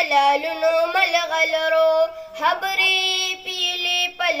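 A child singing a school tarana (assembly anthem), a melodic line of phrases with long held notes.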